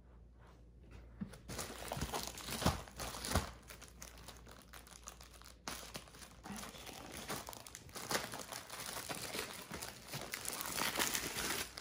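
Paper and plastic wrapping crinkling and tearing as a rolled diamond-painting canvas is unwrapped. It starts about a second and a half in, with a few sharper crackles around three seconds in.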